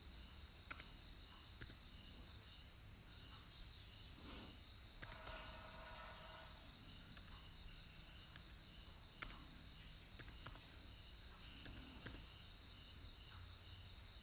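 Insects chirping steadily in the background, with a regular pulsing chirp over a continuous high trill. A few scattered sharp clicks.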